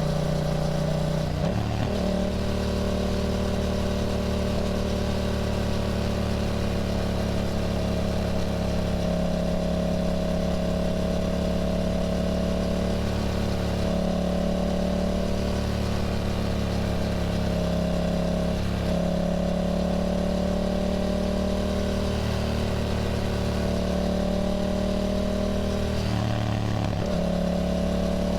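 Yamaha motorcycle engine running at a fairly steady cruising pitch, with short breaks in the note about a second and a half in, about two-thirds of the way through and near the end. A steady hiss runs underneath.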